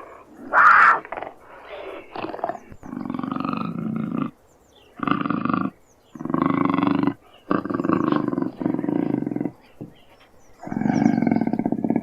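Puma growling in a series of harsh, rasping calls, about six, each roughly a second long with short pauses between them. A short, loud, higher-pitched call comes about half a second in.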